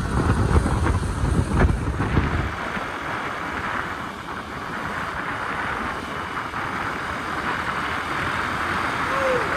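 Wind buffeting the microphone and road noise while riding a moped. The heavy low rumble of the wind drops away about two seconds in, leaving a steady rushing hiss. A short wavering tone starts just before the end.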